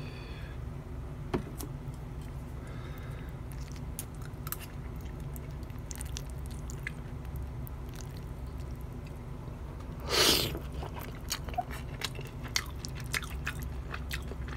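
Someone chewing and biting into fried seaweed rolls (gimmari) with omelet, heard as scattered small clicks and mouth sounds over a steady low hum, with one louder, longer noise about ten seconds in.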